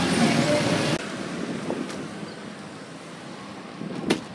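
Street traffic noise with wind on the microphone. The sound drops abruptly about a second in, and there is one sharp click near the end.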